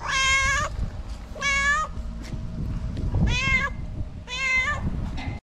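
A stray domestic cat meowing four times, each meow about half a second long, the last two rising then falling slightly in pitch.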